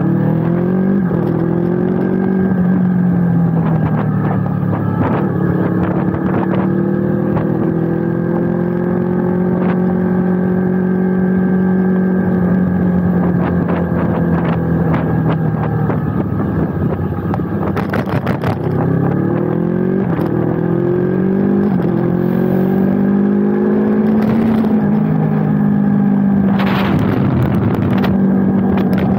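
Yamaha YZF-R25 parallel-twin engine running under way, its note holding steady for long stretches and dropping then climbing back up with the throttle a little past halfway and again later.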